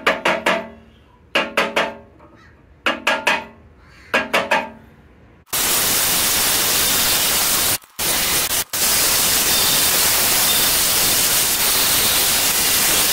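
Four short scrapes of a screwdriver tip against an iron grill grate, then a cordless Ryobi drill spinning a wire brush wheel against the grate bars, a loud, even grinding hiss that breaks off twice for a moment. It is scouring away vinegar-softened rust.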